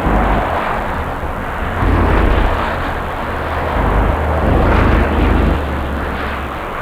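Road traffic on a wet highway: a steady hiss of tyres throwing spray over a heavy low rumble, which swells about two seconds in and again around five seconds.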